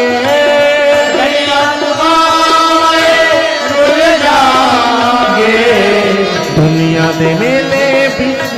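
Instrumental interlude of a Punjabi devotional bhajan: a melody of held notes that bend and glide, over a rhythm accompaniment.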